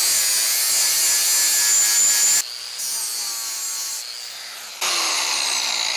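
Grinder grinding weld off a bench vise's jaw seat: a loud, steady grind that drops off about two and a half seconds in as the wheel eases off the metal, then bites again about five seconds in.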